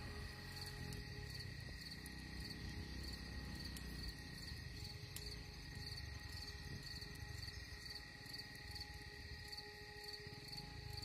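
Faint insect chirping, crickets by their regular pulses, over a low rumble and a soft held background tone.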